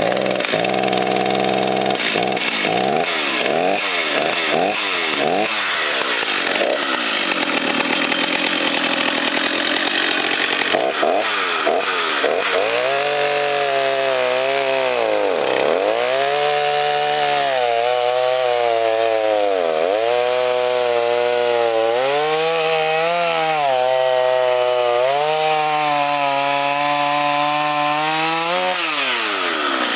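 Stihl MS290 Farm Boss two-stroke chainsaw running with a 20-inch bar, revved up and down repeatedly, then cutting wood. Its engine note dips several times as the chain bogs under load and recovers, then revs freely near the end.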